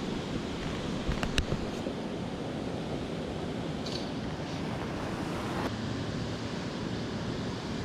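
Steady wind noise on the microphone over river water, with a couple of sharp knocks just over a second in.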